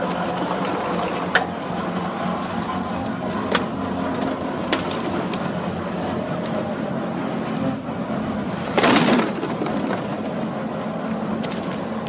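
Horizontal baler and feed conveyor running with a steady machine hum. Over it, PET plastic bottles give a few sharp single cracks, and there is a louder crunching burst about nine seconds in.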